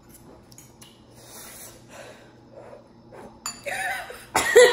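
Faint small clicks and breathing from people eating, then a woman's loud wordless exclamation near the end as she reacts to the burn of the spicy noodles.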